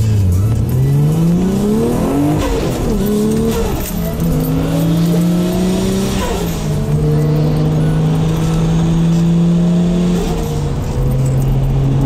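Car engine, heard from inside the cabin, pulling away and accelerating through the gears: its pitch rises and drops back twice in the first four seconds, then it settles into a steady cruise with a slight drop in pitch near the end.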